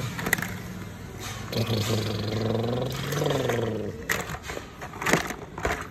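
Plastic toy cars and trucks knocking and clattering against each other and the plastic basin as they are picked out, with several sharp knocks in the second half, the loudest about five seconds in. Before the knocks, a person's drawn-out vocal sound runs for about two seconds, rising and then falling in pitch.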